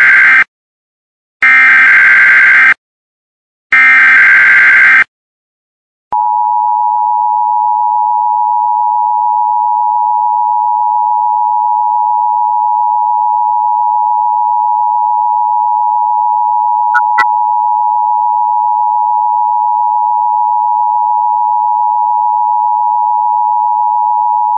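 Emergency Alert System broadcast tones: the end of one harsh, buzzing digital header burst, then two more about a second long with short gaps between. About six seconds in, the EAS attention signal starts, a loud, steady two-pitch tone, with one brief blip partway through.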